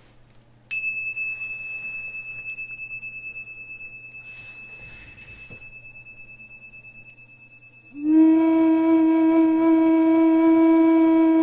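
Tingsha cymbals struck together once, giving a bright, high ring that fades slowly over several seconds. About eight seconds in, a flute begins one low note and holds it steadily.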